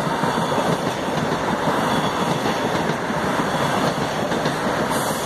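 Toronto TTC subway train running past at speed on an open-air track: a steady rush of wheels on the rails and running gear.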